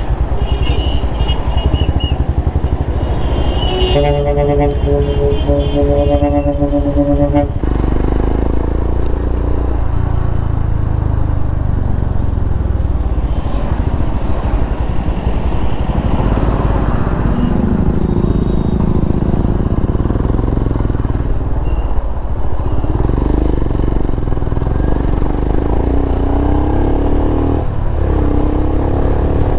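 Motorcycle engine running at riding speed, a steady low rumble with wind rush, its pitch shifting now and then. A vehicle horn sounds once, held for about three and a half seconds, starting about four seconds in.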